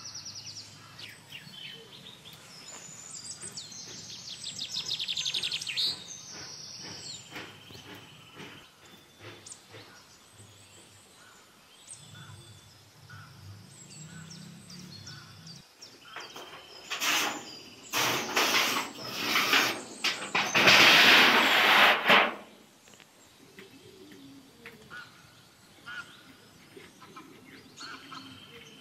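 Small birds chirping, with a rapid trill about four seconds in. Past the middle comes a loud rustling, rushing noise lasting about five seconds, the loudest sound here.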